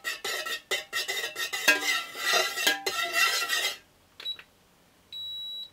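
Metal stirrer scraping and clinking against the inside of an aluminium wax-pouring pitcher as melted wax is stirred, with brief ringing clinks; the stirring stops about four seconds in. Near the end an infrared thermometer gives one steady high beep as it takes a temperature reading.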